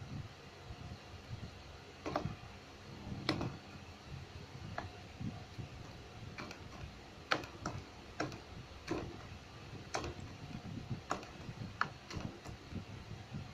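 Hands stretching and pressing freshly made, still-sticky clear gel-glue slime, giving irregular sharp clicks and snaps about once a second.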